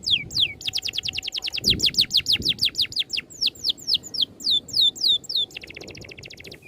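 A songbird singing a rapid rolling song of clear whistled notes, each sliding down in pitch. The notes come fastest in the middle and are followed near the end by a short buzzy trill. It is a masteran, a recorded song played to tutor caged songbirds.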